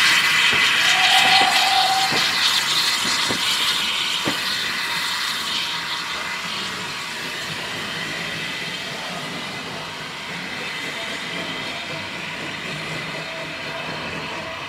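Avonside 0-4-0 saddle-tank steam locomotive and its coach pulling away and receding: a hiss of steam, wheels clicking over rail joints and a short squeal about a second in, all fading steadily as the train draws off.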